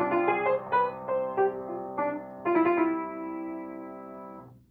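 Upright piano played: a few last notes and chords, then a final chord held for about two seconds that fades and stops abruptly near the end as the piece finishes.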